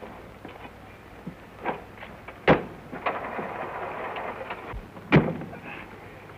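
Two car doors of a vintage touring car slammed shut, about two and a half seconds apart, with a lighter knock before the first and a rustle of movement between them.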